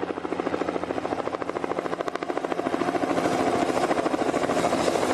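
A large wasp buzzing inside a glass jar, a rapid fluttering buzz that grows gradually louder.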